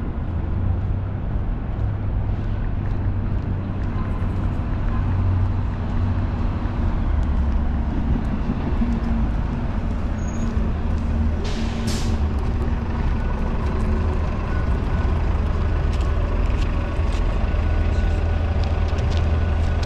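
City street traffic with a heavy vehicle's engine rumbling low and steady. A brief sharp clatter about twelve seconds in.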